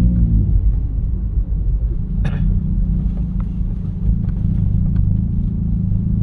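Steady low rumble of a Toyota Calya's engine and tyres, heard from inside the cabin while driving, with one short sharp click about two seconds in.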